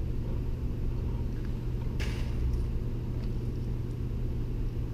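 Steady low rumble and hum. About two seconds in comes a brief rustle of thin insulated wires being twisted together by hand.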